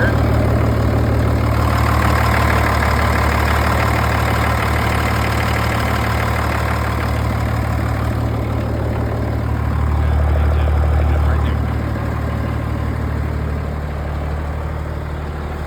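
M35A2 deuce-and-a-half's multifuel inline-six diesel idling steadily with no muffler, a loud low drone. It swells in loudness about ten seconds in, then settles a little lower.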